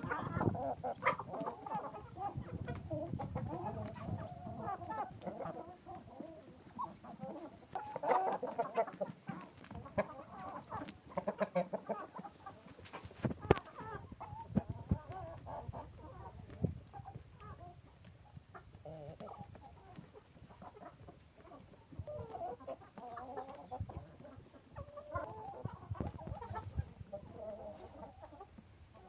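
A flock of Qora Shaxzoda giant chickens clucking continually at feeding time, with scattered sharp taps, most of them about halfway through.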